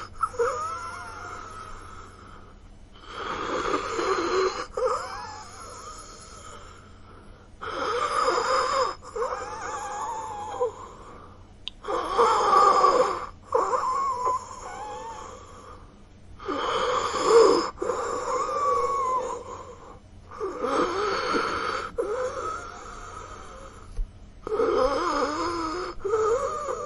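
A person wheezing, breath after breath, in laboured breathing distress. About every four seconds comes a louder, rasping breath, followed by a quieter breath with high, wavering whistles.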